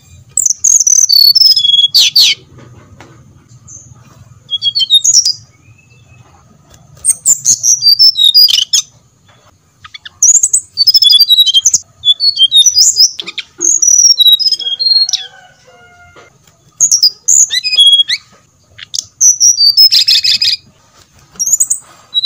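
Brown-chested jungle flycatcher song: loud, high-pitched phrases of quick, warbling whistled notes, about ten phrases separated by pauses of one to two seconds.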